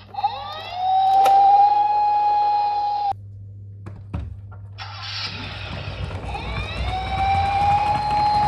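Emergency-vehicle siren winding up into a steady wail that cuts off sharply about three seconds in. After a short gap with a few clicks, a second siren winds up and holds near the end.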